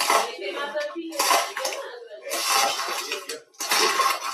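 Slime being squeezed and handled, making several irregular bursts of crackling and clicking.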